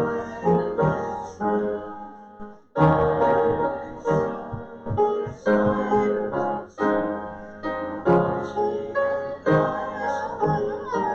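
Piano playing slow, sustained chords, with a short lull about two and a half seconds in before a loud chord.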